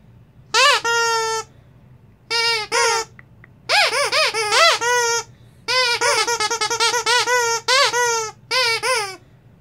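Pup Squeakz plush bear dog toy with a double squeaker, squeezed by hand. It gives about six runs of rapid squeaks, some short and bouncing in pitch, some held as a longer steady squeak, with short pauses between runs.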